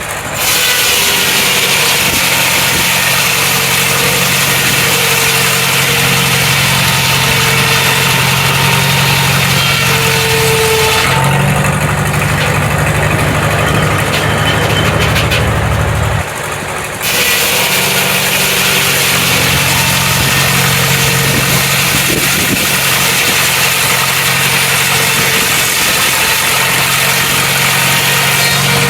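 An engine running steadily at constant speed, a low hum under a loud hissing noise. The sound changes abruptly about 11 and 17 seconds in.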